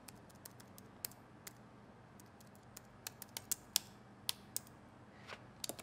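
Typing on a laptop keyboard: irregular key clicks, sparse at first and coming thickest between about three and four and a half seconds in.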